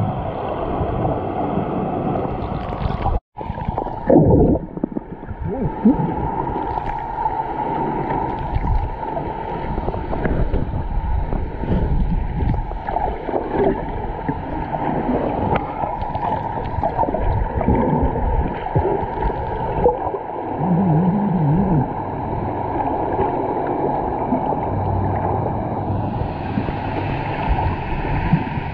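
Muffled underwater water noise, steady rushing and gurgling as the camera moves through the sea, all of it dull and low. It drops out briefly about three seconds in.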